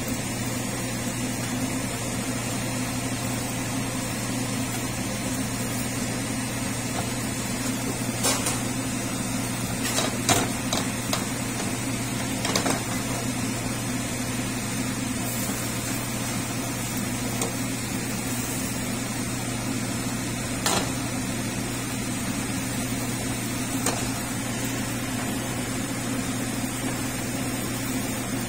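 A steady mechanical hum throughout, with a few short clicks and scrapes of a metal spatula against the frying pan as the tortilla is folded and moved.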